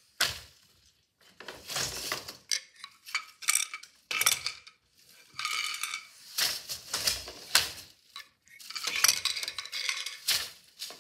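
Four-shaft floor loom being woven: the wooden beater knocks the weft into place a handful of times. Between the knocks the shafts and wire heddles clink as the treadles change, and the wooden boat shuttles slide through the shed.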